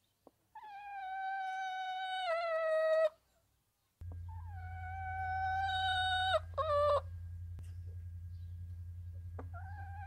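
Rooster crowing twice, each crow a long, held call that steps down in pitch at the end. A steady low hum comes in with the second crow.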